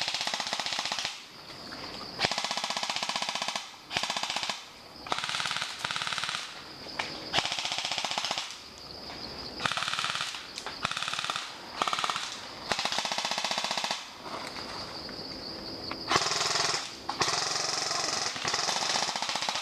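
Airsoft guns firing on full auto in short bursts of rapid popping clicks, about a dozen bursts in quick succession.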